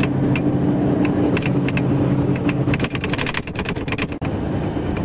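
Tram running, a steady electric hum with quick sharp clicks of the wheels on the rails. The hum fades about three seconds in, leaving a flurry of clicks, and the sound cuts out for an instant a second later.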